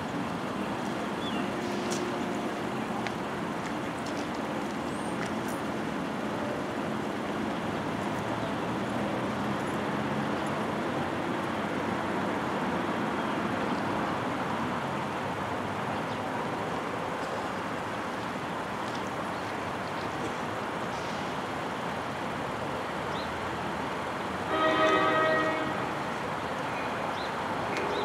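A passenger train's air horn sounds one chord blast of about a second and a half, near the end, as the train approaches the grade crossing. Under it runs a steady background noise.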